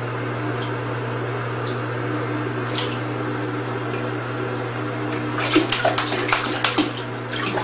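A steady low hum with water lapping in a bathtub. From about five and a half seconds in come quick, irregular splashes as a hairless Sphynx cat paddles through the water.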